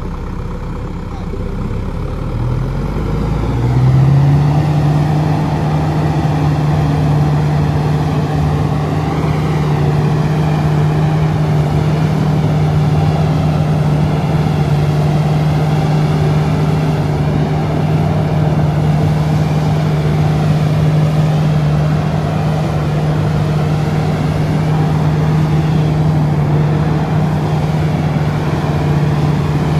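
Tractor diesel engine revving up about four seconds in, then held steady at high revs while the tractor is bogged in deep mud.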